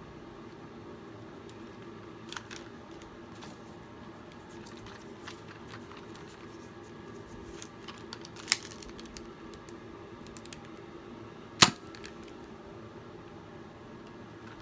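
Nerf Glowshot dart pistol being fired: scattered sharp clicks and snaps, the two loudest about three seconds apart in the second half. A steady low hum runs underneath.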